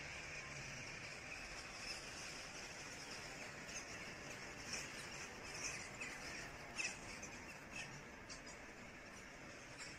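A large flock of birds calling: a steady, dense high chatter, with short sharp calls standing out now and then from about four seconds in.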